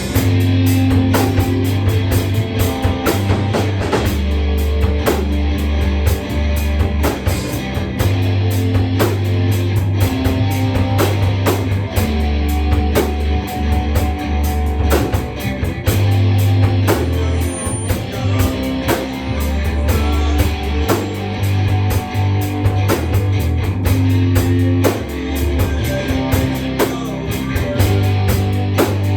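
Rock music played on electric guitar and drum kit, with a steady beat and low bass notes that change every couple of seconds.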